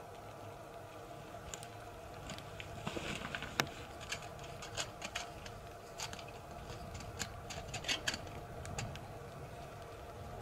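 Light rustling and scattered sharp clicks as a person moves about and handles things at a brushwood lean-to shelter, the sharpest click a little over three seconds in, over a steady faint background.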